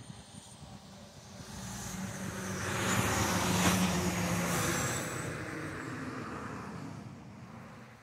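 A motor vehicle passing by: its engine noise swells to a peak about three to four seconds in, then fades away.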